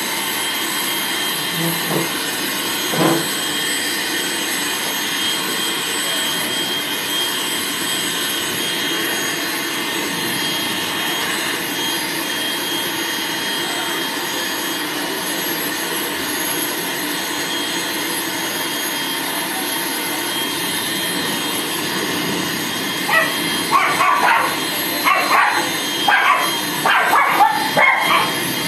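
Pet grooming dryer blowing steadily. Near the end a nervous Maltese starts yelping and barking in short, repeated calls over the dryer noise.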